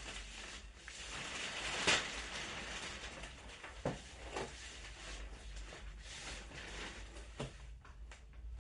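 Packaging on a bed base being handled and opened: a steady rustling with a few sharp knocks and clicks, the loudest about two seconds in.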